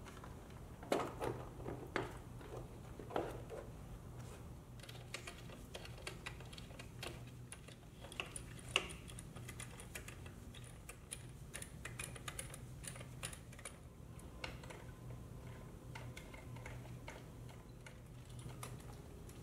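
Scattered light clicks and taps of hand tools, fasteners and plastic body panels as a motorcycle's rear bodywork is taken apart, with a few sharper knocks in the first three seconds and one near the middle, over a steady low hum.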